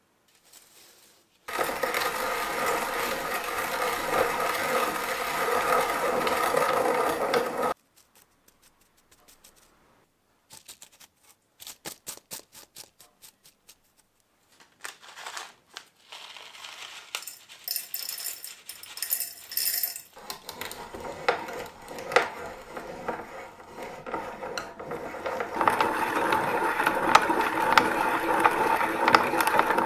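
Restored antique hand-cranked cast-iron sugar grinder being turned, its burrs grinding steadily for about six seconds, then again near the end. In between come light clicks and the scraping rustle of fingers rubbing the ground powder on paper.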